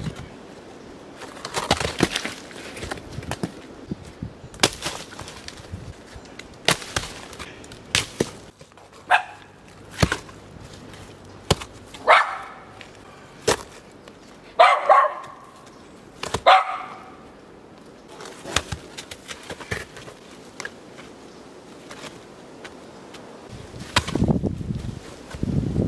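Volcanic stones knock and scrape against each other as they are shifted and set by hand into a dry stone wall. A dog barks several times in the middle, and these barks are the loudest sounds.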